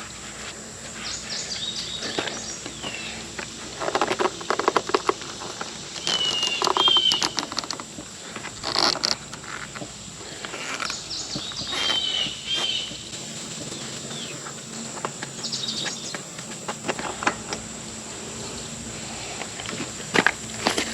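Intermittent clatter and bunches of rapid clicks from hand tools being worked on a mower during an oil change, with two short squeaks, over a steady high insect drone.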